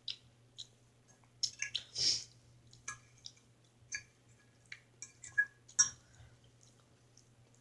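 Close-miked eating: soft wet chewing, mouth clicks and squishes in short scattered bits, over a faint steady low hum.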